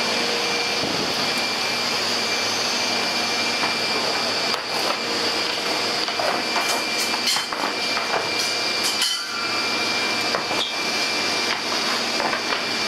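Steady running noise of a working shearing shed, the shearing machines going with a constant high whine. Scattered knocks and clatter sound through the middle.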